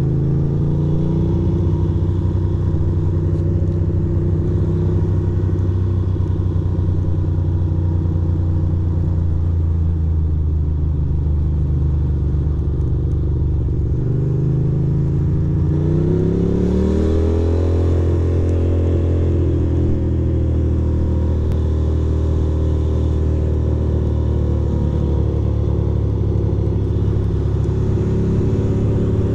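2006 Ducati Monster 620's air-cooled L-twin engine running under way at low speed, heard from the rider's seat. About fifteen seconds in it revs up as the bike accelerates, then settles back to a steady run.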